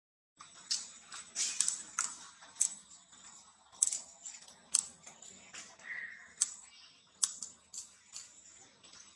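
Dry leaf litter crackling in irregular sharp clicks, about a dozen, as a young macaque forages and moves through it, over a faint steady high-pitched whine.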